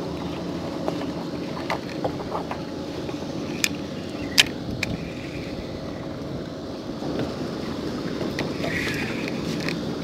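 Steady low rumble of wind and water around an open fishing boat, with a few sharp clicks, the loudest about four and a half seconds in.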